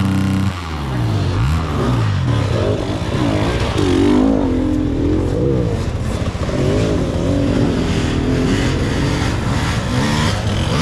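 Several enduro motorcycles revving up and down as they climb a dirt trail, their engine notes overlapping and rising and falling. One bike passes close near the end.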